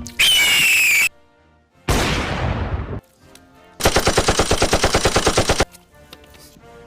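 A string of edited sound effects: a short, loud screech that slides down in pitch, the eagle-scream effect, then about two seconds in a loud noisy crash lasting about a second, then a rapid gunfire-like rattle of about ten shots a second for nearly two seconds, cut off sharply.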